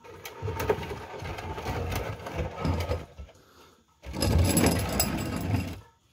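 An oil drain container dragged across rough concrete, scraping and rattling in two pulls, the second starting about four seconds in.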